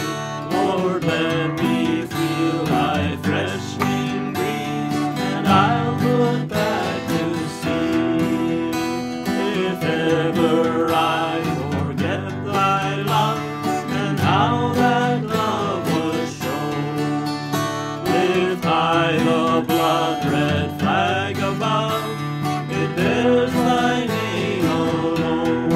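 Two acoustic guitars strummed together, one a black Gibson, with two men singing a hymn in unison over them.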